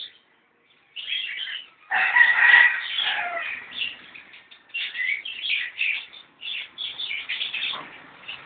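Chickens and small birds calling, with the loudest calls about two seconds in, among them what sounds like a rooster crowing.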